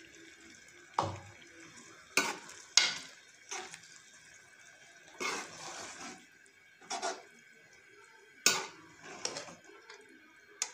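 Steel spoon scraping and clinking against a steel cooking pot while stirring yogurt into minced meat, in irregular strokes about once a second with one longer scrape midway.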